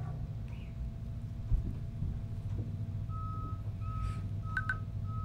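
Cordless electric dog clipper running with a steady low hum as it trims fur, with a sharp knock about a second and a half in. From about three seconds in, short high beeps repeat at about one and a half a second, like a reversing alarm.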